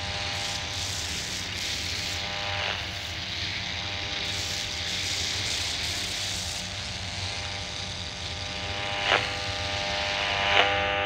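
Steady dark ambient drone: a low rumbling hum under a cluster of held tones and a hiss, with two short swells near the end.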